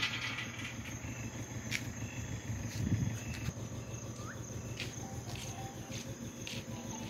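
Crickets chirping steadily in the night air, with a few faint clicks and a soft low thump about three seconds in.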